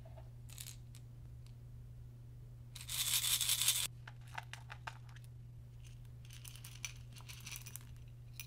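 Crinkling, tearing handling noise: about three seconds in, a loud second-long crackle, followed by scattered light clicks and a softer stretch of crinkling, under a steady low hum.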